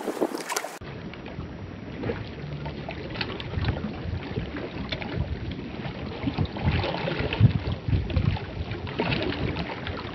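Small waves lapping and splashing against a rocky shore, with wind buffeting the microphone in uneven low rumbles.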